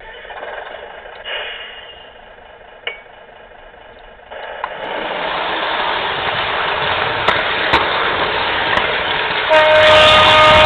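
Model train running on its track, the motor and wheel noise rising about four seconds in and growing louder. Near the end a steady horn sounds.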